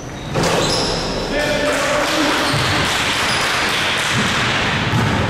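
Basketball game in a gym: players' voices, short sneaker squeaks on the court and a ball bouncing. The noise gets louder about half a second in.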